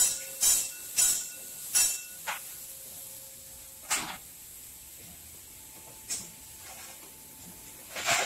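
Class 58 steam locomotive 58 311 standing and letting off steam. A run of short, regular hisses about twice a second slows and stops about two seconds in, then single hisses come every couple of seconds.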